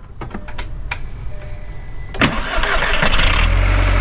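A VW MK4 1.8T turbocharged four-cylinder engine starting: the starter cranks for about two seconds, the engine catches and flares, then settles to a steady idle. This is the first start on a newly fitted ignition coil-pack harness, and the idle is even with no misfire.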